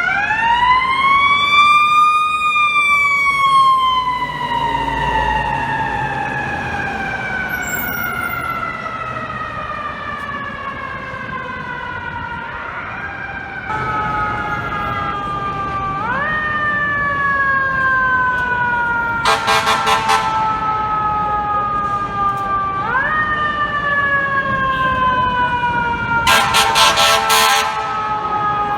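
Fire truck's mechanical siren winding up to a high pitch and slowly coasting down, then wound up again three more times. Two blasts of the truck's air horn, each about a second and a half long, cut in over the falling siren.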